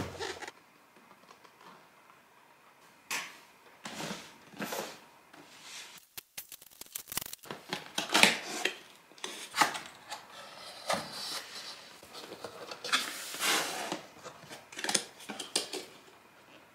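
Cardboard camera box being handled: quiet at first, then scattered rustles and scrapes of cardboard, a run of small clicks about six seconds in, and louder rustling from about eight seconds as a paper seal sticker is peeled and the box lid is lifted open.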